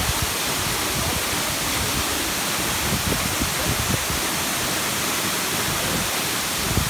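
Waterfall pouring into its plunge pool close by: a loud, steady rush of falling water.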